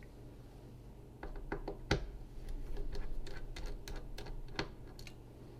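Irregular light clicks and ticks of a precision Torx 5 screwdriver working small screws out of a Mac mini's fan, over a faint steady hum.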